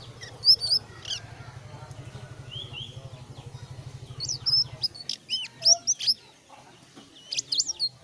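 Caged selendang biru songbird singing scattered short, high chirps and slurred whistled notes. A low, rapidly pulsing motor-like hum runs underneath and stops a little past halfway.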